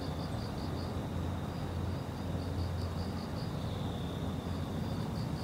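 Insects calling in runs of quick high chirps, about five a second, over a steady high buzz, with a steady low rumble underneath.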